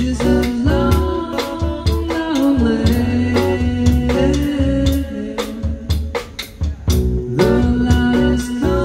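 Live band music: a man singing long held notes with slides over strummed acoustic guitar and a drum kit keeping a steady beat.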